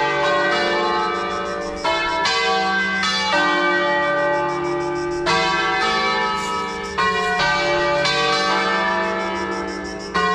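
Church tower bells ringing the midday peal: several bells of different pitch struck one after another, about one strike a second, each ringing on under the next.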